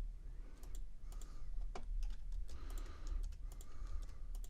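Irregular light clicks of typing on a computer keyboard, over a low steady hum.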